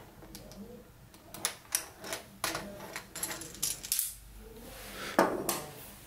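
Hands handling a plastic model building and the thing that held its glued corner: a run of sharp, irregular clicks and taps, then one louder knock about five seconds in.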